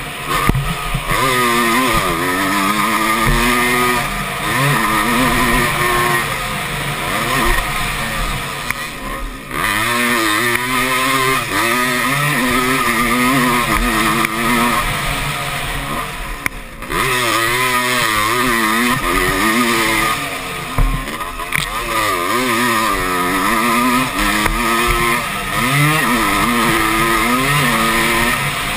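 Motocross bike engine heard from an onboard camera, revving up and down hard through the gears as it is raced around a dirt track. The engine note drops off briefly twice where the throttle is shut off, then picks up again.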